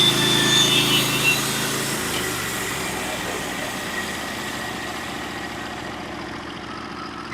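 Norwood HD36 portable bandsaw mill's engine running as the blade cuts a plank off a pitch pine cant. The engine's pitch shifts about two seconds in, and the sound gradually gets quieter.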